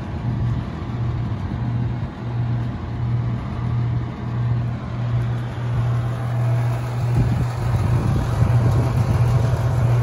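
Bryant heat pump outdoor unit running in cooling mode: a steady low compressor hum over an even rush of noise.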